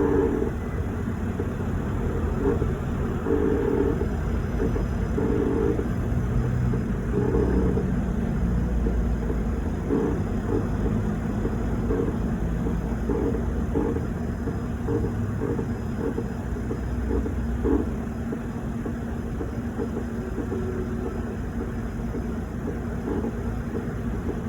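Panasonic NR-B170TV refrigerator's compressor running with a low hum. Over it, an intermittent rough juddering like a chair being dragged across a floor comes and goes in bursts, thinning out in the last few seconds. This is an abnormal noise from a defective new unit.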